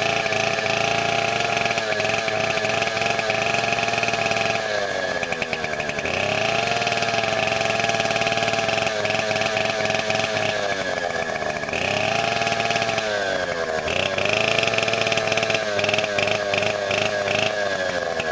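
Stihl 090 AV chainsaw, a 137 cc two-stroke, running freshly cold-started at high revs without a load. The revs drop briefly and climb back up a few times, about 5, 12 and 13 seconds in. The owner remarks that the saws don't seem to run right at full throttle without a load.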